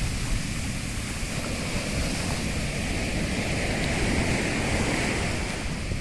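Sea waves breaking and washing up a beach in stormy weather, with wind buffeting the microphone as a low, fluttering rumble. The hiss of the surf swells up around the middle and eases again near the end.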